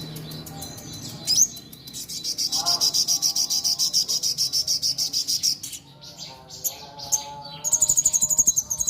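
Sogon songbird singing: fast runs of repeated high chirps, about five a second, broken by lower warbling notes. It sings hard, in full song.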